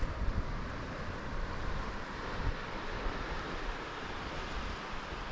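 Steady outdoor wash of wind and ocean surf, with an uneven low rumble of wind on the microphone.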